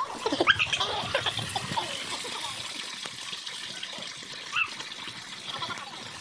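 Spring water pouring steadily from a stone wall spout and splashing as hands are held under the stream, with a few brief high chirps over it early on and again near the end.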